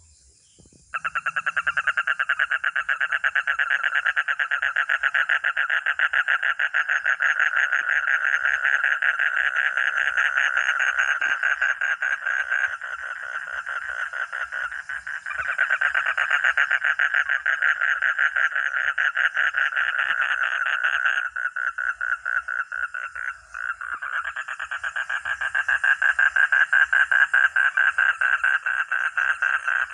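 A frog calling in a long, fast pulsed trill that starts suddenly about a second in and goes on without a break, easing off slightly twice. Insects shrill faintly and steadily behind it.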